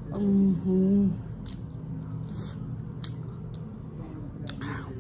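Two short closed-mouth "mmm" hums of enjoyment in the first second, then chewing of flaky paratha roll with noodles: wet mouth smacks and a few sharp clicks.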